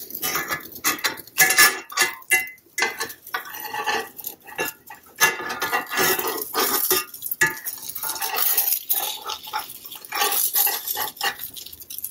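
A spatula scraping and clinking against a frying pan in quick, irregular strokes, working under a chickpea-flour pancake to loosen and flip it.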